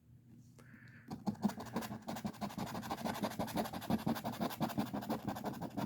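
A lottery scratch ticket's coating being scratched off in rapid short back-and-forth strokes, several a second, starting about a second in.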